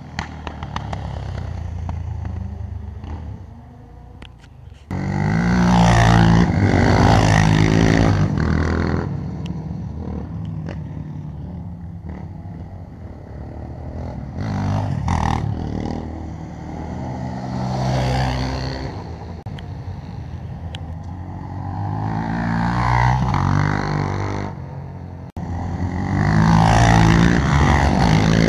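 Sport quad-bike (ATV) engines racing on a track, revving up and dropping back again and again as the quads accelerate and brake through the corners. The loudness jumps sharply about five seconds in and again near the end.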